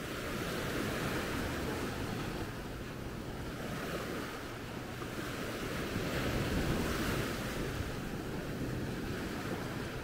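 Small sea waves breaking and washing up a sandy beach, swelling and easing, loudest about two-thirds of the way through, with wind rumbling on the microphone.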